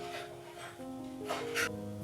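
Slow background music of soft, overlapping held notes, with two short hissing strokes a little past a second in.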